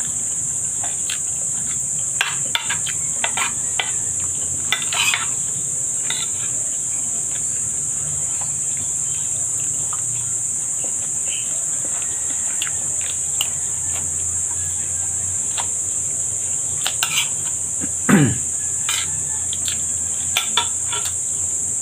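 A metal spoon clicks and scrapes against a ceramic bowl of rice and squid in scattered bunches, over a steady high-pitched hiss. The loudest moment is a sharp click followed by a short low sound dropping in pitch, about eighteen seconds in.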